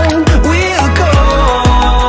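Background pop song with a steady beat and a deep kick drum about twice a second.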